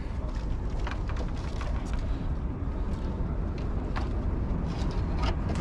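Wind buffeting the microphone outdoors as a steady low rumble, with a few faint ticks scattered through it.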